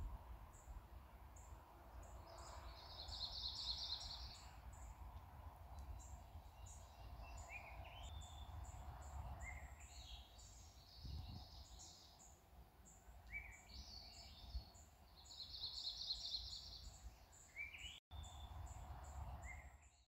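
Faint forest birdsong: a high buzzy trill heard twice, with short rising chirps between, over a steady series of very high ticks and a low rumble.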